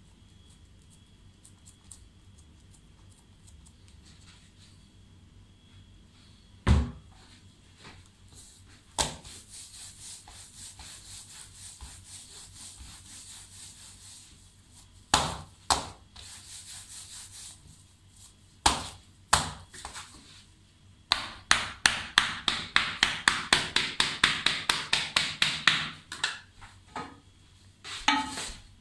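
Hands rolling a filled poppy-seed dough log on a marble slab, with a few single knocks on the stone. Later comes a fast run of blade strikes on the marble, about seven a second for some five seconds, as the log is cut into slices.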